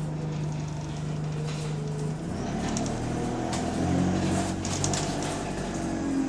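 City bus engine running, heard from inside the bus, with rattles through the body. The engine note holds steady, then changes and climbs after about two seconds as the bus pulls or accelerates. This bus has an exhaust leak.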